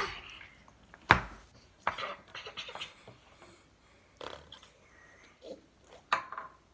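Fart noises made with slime and hands: one sharp, loud pop about a second in, then a few quieter short squelches and smacks.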